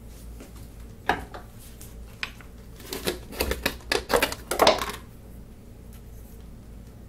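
Small plywood strips clicking and knocking against a plywood panel as they are set down and fitted along its edges: a single click about a second in, then a quick run of clattering knocks in the middle.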